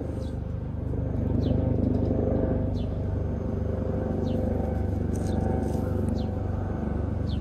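Domestic ginger-and-white cat purring steadily while being stroked, a low rumble close by.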